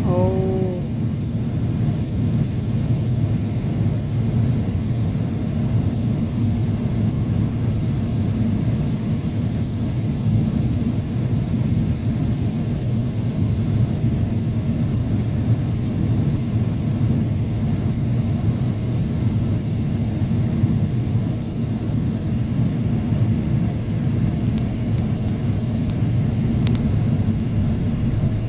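Steady airliner cabin noise on the approach to landing: a low, even rumble of the engines and rushing air heard from inside the cabin.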